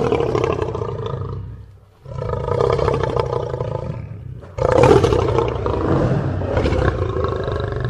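Lion roaring: three long, deep roars in a row, the second starting about two seconds in and the loudest about four and a half seconds in, each tailing off.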